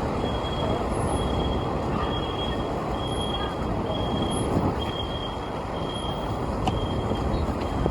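Steady street traffic noise heard from a moving bicycle, with a short high electronic beep repeating about once a second.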